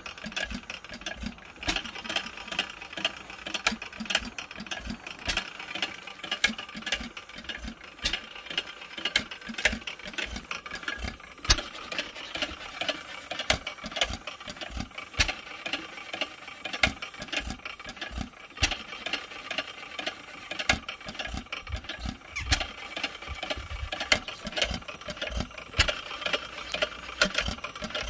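1898 Barker hot-tube ignition stationary gas engine running, a steady fast clatter of valve gear and governor clicks with a sharper knock every second or two.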